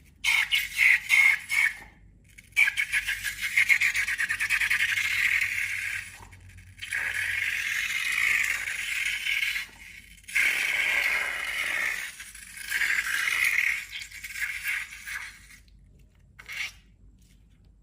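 Rubber balloons being rubbed and worked by hand, giving squeaky, scraping rubbing in bursts of one to three seconds with short pauses between.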